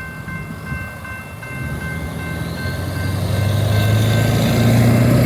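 Trailing locomotive of a passing train, its engine drone growing steadily louder as it comes past, over wind and rolling train noise. Steady level-crossing bell tones sound in the background and fade out about halfway through.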